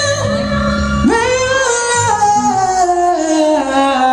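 A singer's high voice holding long notes without words. It slides up about a second in and then steps down note by note, over steady low instrumental tones.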